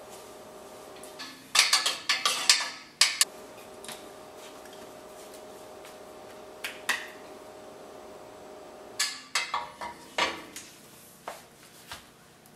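Two bursts of sharp clicks and knocks, each a second or two long, with a few single clicks later, over a faint steady hum.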